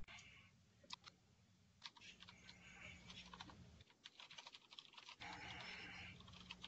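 Faint typing on a computer keyboard: irregular key clicks, with short patches of hiss at the start and again about five seconds in.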